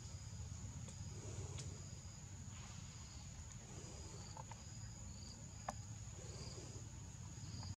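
Insects droning in the trees: a steady high-pitched whine with short chirps repeating every second or so, over a low rumble, and a single sharp click a little over two-thirds of the way through.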